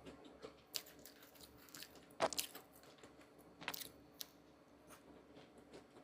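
Irregular crisp crunches and small clicks, with louder crunches about a second in, at about two and a quarter seconds, and near four seconds.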